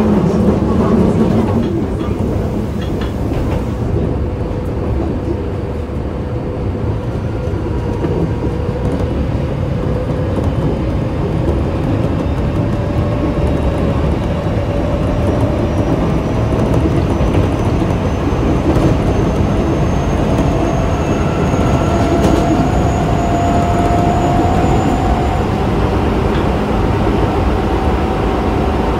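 Osaka Metro 24 series train running, heard from inside the car: wheel and rail noise under the whine of its Hitachi IGBT inverter and traction motors, which rises slowly and steadily in pitch as the train gathers speed.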